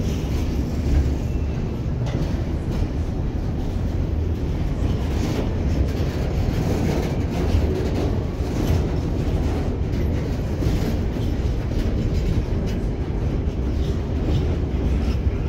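Container freight train's wagons rolling past close by: a steady low rumble of wheels on rail, with occasional clicks as the wheels cross rail joints.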